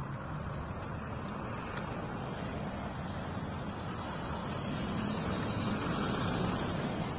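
Steady low rumble of distant road traffic, swelling a little about five seconds in.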